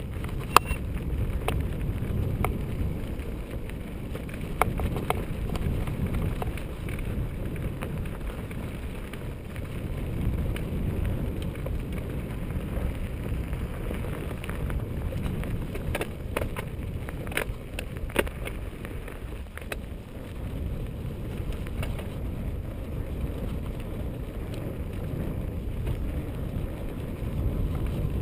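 Mountain bike ridden over a dry, stony dirt singletrack: a steady low rumble of wind on the microphone and tyres on dirt, with scattered sharp clicks and rattles from the bike over the rough ground, the strongest about half a second in and a cluster about two-thirds of the way through.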